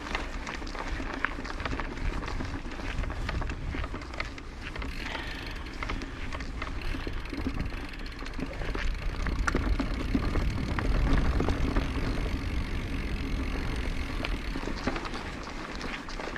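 Orbea Occam mountain bike climbing a dirt trail: tyres rolling over the ground with a steady stream of small clicks and rattles from the bike, over a low rumble.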